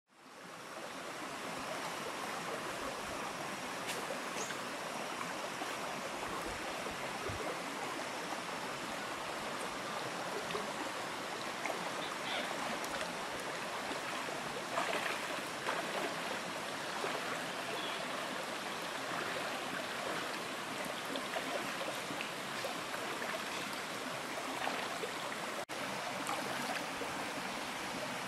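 Shallow rocky creek flowing steadily, fading in at the start, with a few light splashes from someone wading in the water.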